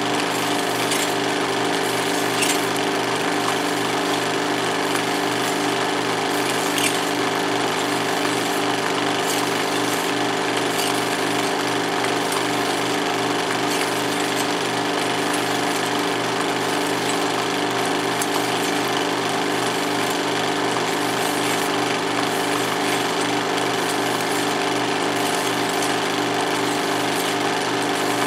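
16mm film projector running steadily, its mechanism giving an even, continuous mechanical chatter.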